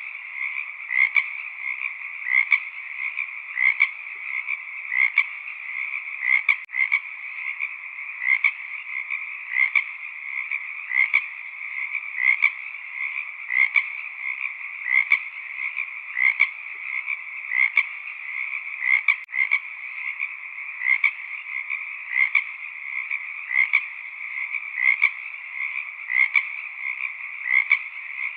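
Frog chorus: dense, unbroken calling, with louder croaks standing out regularly a little more than once a second.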